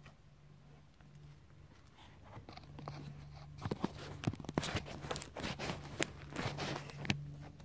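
Crackling and rustling close to the microphone, sparse at first and dense from about three seconds in, over a steady low hum.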